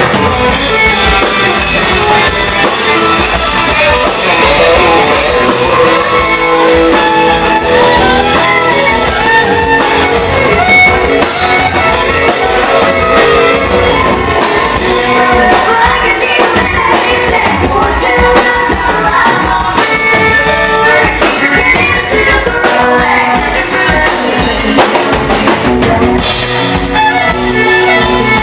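A live rock band playing loudly, with singing over guitar and drums.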